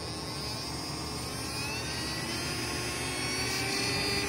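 Oright 12 V mini drill's small DC motor running with a whine that rises steadily in pitch and grows a little louder as the bench power supply's voltage is turned up, speeding the motor.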